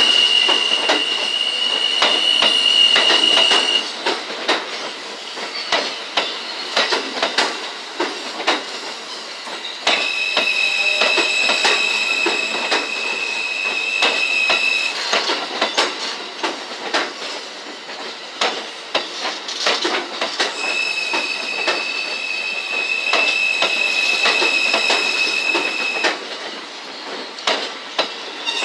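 New York City subway train rolling past, steel wheels squealing on the rails in three stretches of several seconds: at the start, from about ten seconds in, and again past twenty seconds. Rapid clicks and clatter of wheels over rail joints run underneath throughout.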